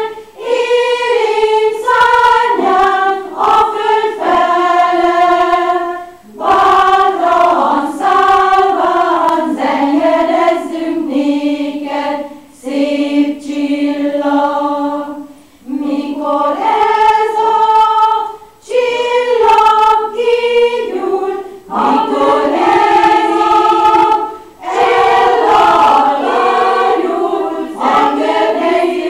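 A choir of mostly women singing, in phrases a few seconds long with brief pauses between them.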